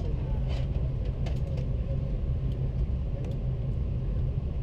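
Steady low rumble inside an Airbus A330-300 cabin at the gate, with a few faint clicks scattered through it.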